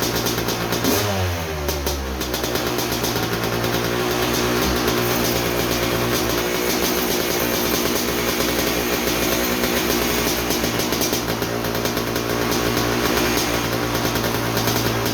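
1987 Kawasaki KX250's single-cylinder two-stroke engine running steadily while it is tuned for idle. Its revs swing briefly about a second in, then settle.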